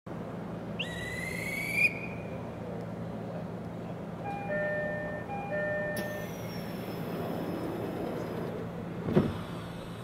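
JR East E129 series electric train standing at a platform, with a steady low hum. A short rising whistle comes about a second in, a two-note high-low chime plays twice around the middle, and a sharp thud near the end is the loudest sound.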